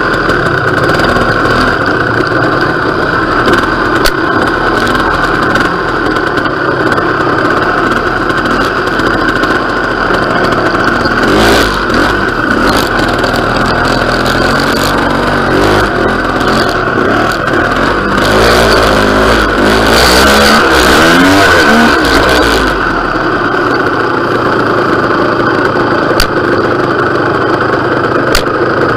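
Vintage trials motorcycle engine heard close up from on board, running at low speed through a trials section. About a third of the way in it gets louder, with the revs rising and falling through the throttle, then drops back to a steadier low-speed run near the end; a few sharp clicks come through.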